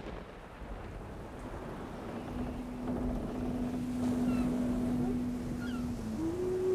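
Song intro of sea surf and wind noise. A steady low note enters about two seconds in and steps up to a higher held note near the end.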